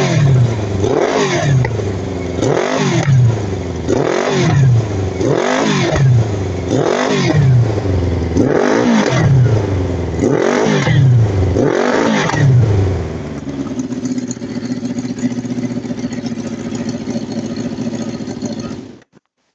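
Engine being blipped, revving up and falling back about eight times, roughly once every one and a half seconds, then settling to a steady idle before cutting off abruptly near the end. The owner calls it a misfire.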